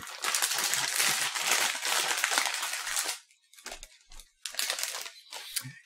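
Plastic snack bag crinkling as it is handled and folded. The crinkling is loud and continuous for about three seconds, then breaks into a few short, softer crinkles.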